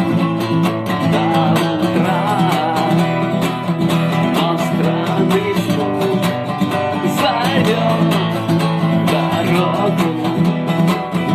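Acoustic guitar strummed in a steady rhythm, an instrumental passage of a song without sung words.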